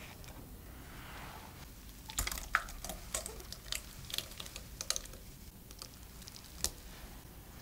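Irregular soft wet clicks and ticks of a blended puree being scraped out of a food chopper's glass bowl into a glass mixing bowl, starting about two seconds in, with one sharper click near the end.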